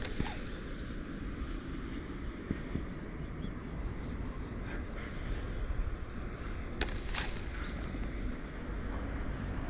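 Outdoor ambience dominated by wind on the microphone, a steady low rumble, with a few sharp clicks, the clearest two coming about seven seconds in.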